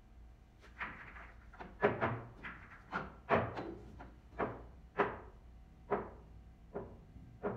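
A series of sharp clacks, roughly one every half second to second, each with a short ring: hard billiard balls knocking together.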